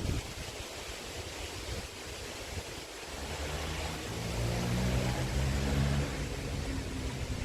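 Wind rushing over the microphone, then a passing motor vehicle's engine hum rises about three seconds in, is loudest a couple of seconds later and eases off near the end.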